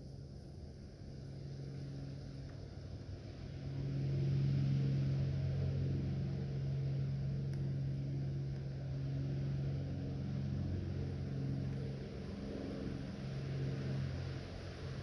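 A steady low engine hum that swells about four seconds in and then holds.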